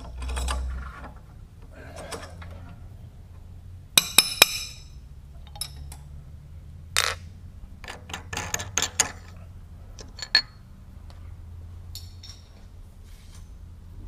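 Metal tooling clinking and ringing as it is handled and set down for a tool change on a milling machine: scattered sharp clinks, with ringing strikes about four seconds in and about seven seconds in and a flurry of clinks a little later, over a steady low hum.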